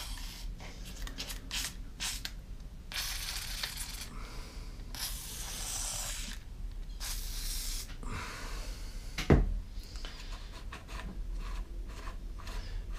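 Aerosol spray can hissing in several short and longer bursts through its straw, lubricant being shot into a chainsaw's sticking chain-brake spring, with small clicks of handling and one sharp knock about nine seconds in.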